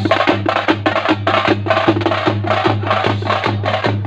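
Drums beating a fast, even rhythm, about three strokes a second, each stroke a low thud with a sharp crack on top.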